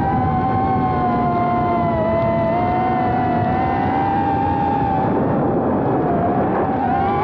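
Small FPV quadcopter's 1303-size brushless motors and propellers whining steadily as it flies. The pitch sags a little about two seconds in, drops lower and wavers between about five and seven seconds as the throttle eases, then climbs back near the end.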